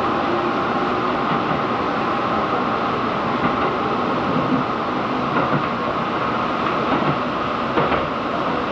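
Tobu Isesaki Line local electric train running, heard from inside the passenger car as it pulls away from a station: a steady rumble of wheels and motors.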